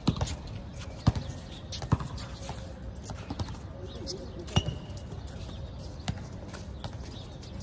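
A basketball bouncing on a concrete court: three loud bounces a little under a second apart at the start, then another about four and a half seconds in, with fainter knocks in between.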